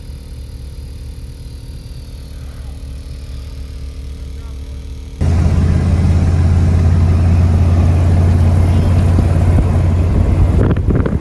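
Truck engine running steadily with a low hum. About five seconds in, it jumps abruptly to a much louder, deep engine and road rumble, as of the truck under way.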